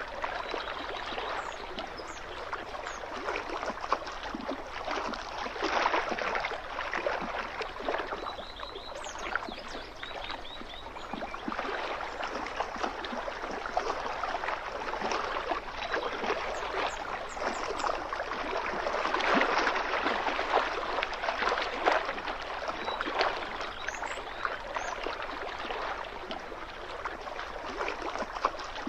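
Small waves lapping and splashing against the lakeshore in an irregular, continuous wash that swells and eases.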